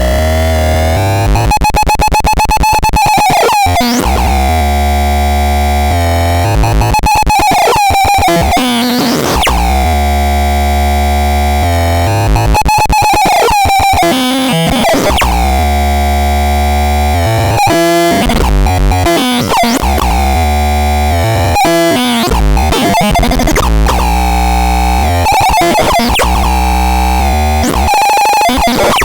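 Electronic synthesizer sounds: heavy bass drones under harsh, buzzing pitched tones that sweep and warble, shifting to a new patch every few seconds.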